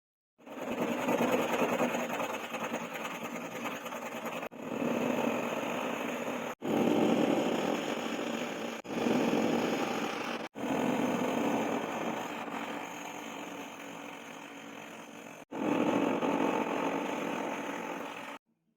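Electric power tool running under load, working steel. It comes as six short stretches, each stopping abruptly at a cut.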